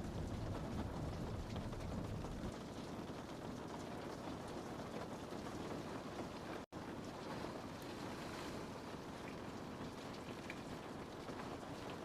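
Steady rain falling on a window pane: an even hiss with scattered drop ticks. A low rumble underneath eases off after about two seconds, and the sound cuts out for an instant about two-thirds of the way through.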